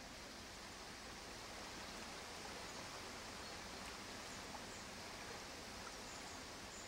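Faint, steady rushing noise, like flowing water or outdoor ambience, with a few faint high chirps.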